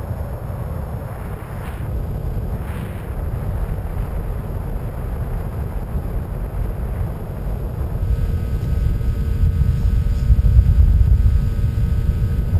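Wind rushing past the onboard camera of a Skywalker 1900 model plane in flight, a steady low rumble. About eight seconds in, a steady electric-motor whine comes in and the rushing grows louder.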